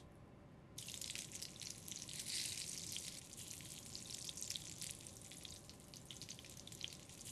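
Pear quarters sizzling as they are laid into hot coconut oil and butter in a stainless steel skillet: a steady frying hiss with fine crackling that starts about a second in, as the first wedge goes in, and runs on while more are added.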